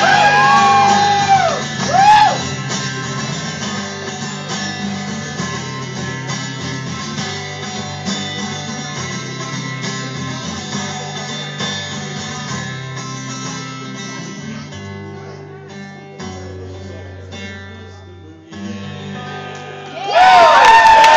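Acoustic guitar played live, strummed and picked through a song's outro after a voice holds a last sung note for the first couple of seconds; the playing grows quieter, with a few final notes near the end. About 20 seconds in the audience breaks into loud cheering and applause.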